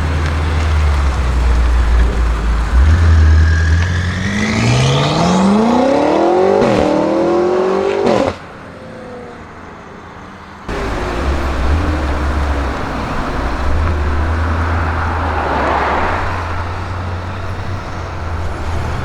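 BMW M5 F90's twin-turbo V8 through a SuperSprint exhaust, idling with a deep rumble and then revved hard, the pitch climbing for about four seconds with a couple of sharp cracks before it cuts off suddenly. After a couple of quieter seconds the engine is heard idling again.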